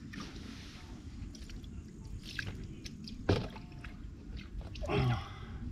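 Wet handling noises of a freshly landed carp: squelching and dripping water with scattered small clicks, and one sharp thump a little past the middle.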